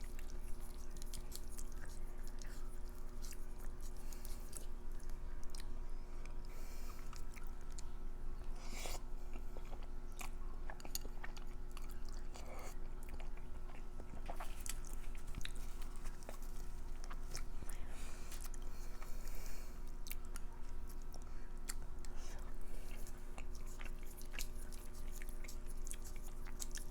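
Close-miked chewing of food, with many small, irregular wet mouth clicks and the odd bite or slurp, over a faint steady hum.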